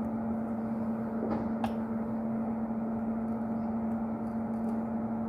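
A steady electrical machine hum, one low tone with fainter higher tones over it, from running workbench equipment. Two light clicks come about a second and a half in.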